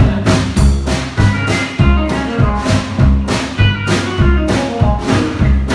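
Background music with a steady beat: drums over a bass line and pitched instruments.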